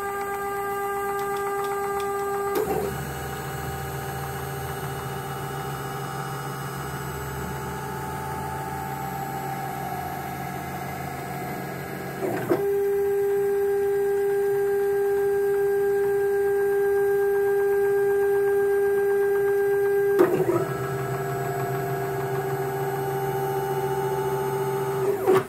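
Stepper motors of a CNC-converted Sieg X2 mini-mill driving the table through its stock 16-thread-per-inch lead screws in a bow-tie test move to the ends of travel. A steady whine changes pitch three times, with a short click at each change as one move ends and the next begins, and it stops suddenly at the end.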